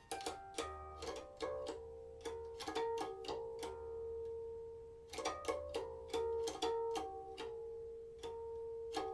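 Silk-string guqin played solo: groups of quick plucked notes, with one middle-register note sounding again and again and left to ring between them.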